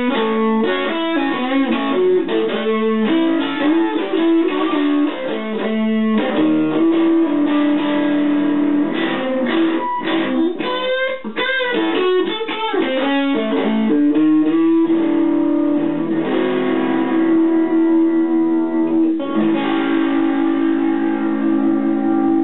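Electric guitar played solo: quick blues licks with bent notes for the first two-thirds, then a chord left ringing, and another chord struck near the end and allowed to ring out.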